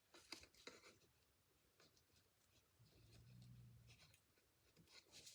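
Faint rustling and light taps of small paper embellishments, iridescent adhesive dots, being handled and pressed onto a card. A short, quiet low hum comes in about three seconds in.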